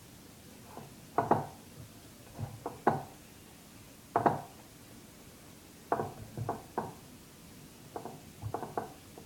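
A utensil knocking and clacking against a mixing bowl while pasta salad is stirred, in short irregular strokes.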